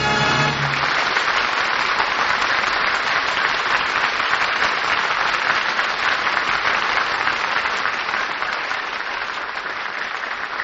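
Audience applauding steadily, easing off slightly toward the end; an orchestra's final held chord cuts off about half a second in.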